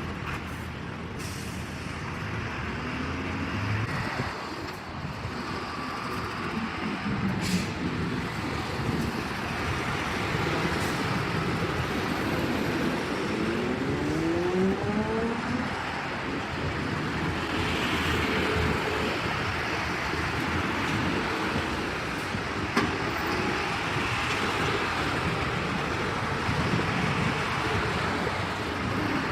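Heavy vehicle engine running under continuous mechanical noise, its revs rising about halfway through.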